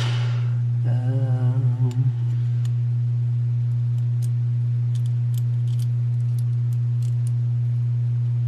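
Low, steady electrical hum throughout. About a second in, a man briefly hums a few notes, followed by a few faint small clicks.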